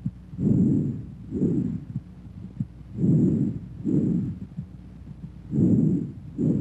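Bronchovesicular breath sounds heard over the chest: three breaths, each an inspiratory and an expiratory whoosh of about equal length with a short gap between them, at an intermediate pitch.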